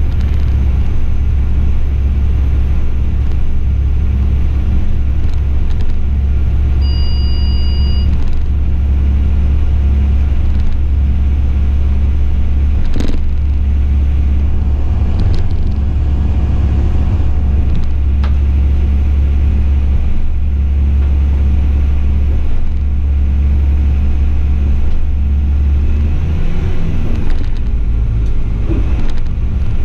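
Class 840 RegioSpider diesel railcar running along the track: a steady low rumble of engine and wheels on rail. A brief high tone comes about seven seconds in and a sharp knock about thirteen seconds in, and the low note shifts in pitch near the end.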